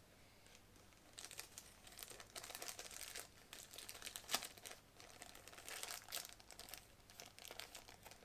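Packaging crinkling and rustling in soft, irregular crackles as a small part of a car alarm kit is handled and unwrapped.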